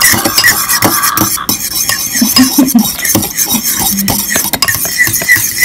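A utensil beating thick pancake batter in a bowl, with quick clicking and scraping strokes against the bowl, over background music.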